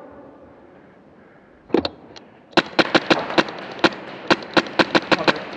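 Airsoft gun shots: a couple of sharp cracks, then after a short pause a quick, slightly uneven string of shots at about six a second.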